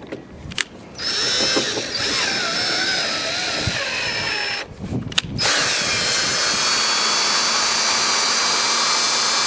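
Power drill running in two bursts, used to spin out a broken brass screw stuck in old lumber: the first run wavers in pitch as it works against the screw, then after a short stop and a click it runs again more steadily.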